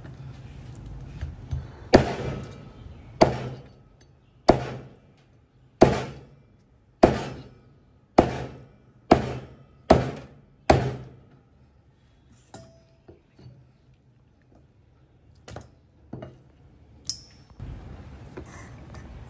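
Cleaver chopping through a puffer fish fillet into a thick round cutting board: nine heavy chops about a second apart. Then a few light knocks and a short clink as the pieces are handled.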